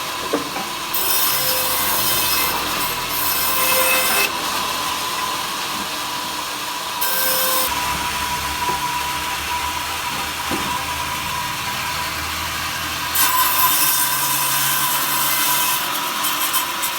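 Power saw running with a steady whine, cutting wood into thin slats in repeated passes, each cut a burst of hissing saw noise.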